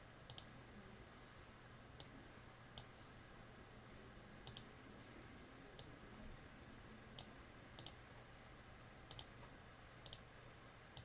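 Faint computer mouse button clicks, about ten of them and some in quick pairs, over a low steady hum.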